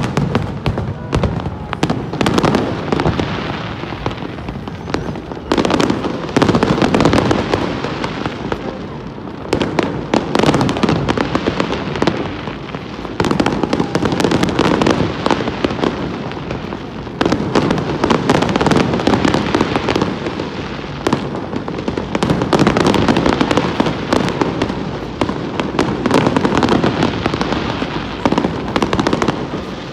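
Fireworks display: a dense, continuous barrage of aerial shells bursting with bangs and crackle, swelling and easing in waves.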